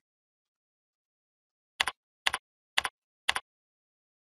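Four keystrokes on a computer keyboard, typing a short word, each a quick double click of the key going down and coming back up. They come about half a second apart, starting a little under two seconds in.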